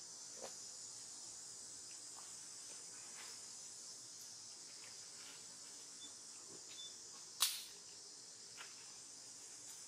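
Steady high-pitched drone of insects in the trees, with a few faint ticks and one sharp click about seven seconds in.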